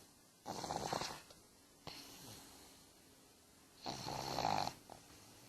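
A sleeping pug snoring: two snores about three seconds apart, each lasting about a second, with a fainter one between them.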